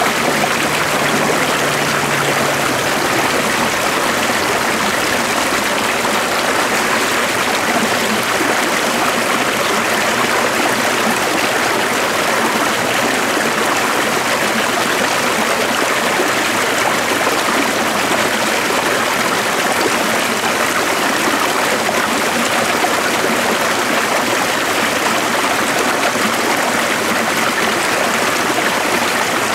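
A stream running steadily, a continuous rush of flowing water.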